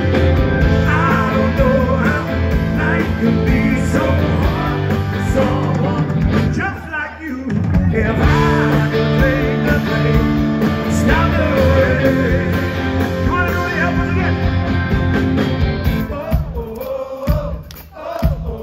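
Live blues-rock band music: electric guitar, bass, drums and keys with a sung vocal line. Recorded on a phone. The music breaks into separate hits in the last couple of seconds.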